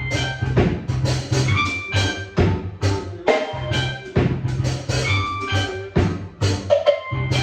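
A drum kit and a keyboard playing a reggae groove together, with a steady repeating bass line under regular drum hits and held keyboard notes.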